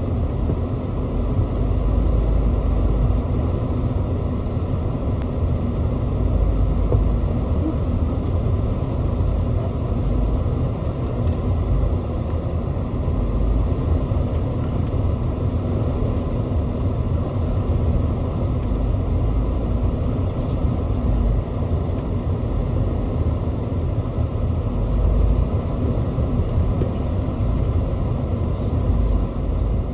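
Off-road vehicle driving over a rough dirt trail, heard from the cab: a steady low rumble of engine and trail noise with a faint steady hum.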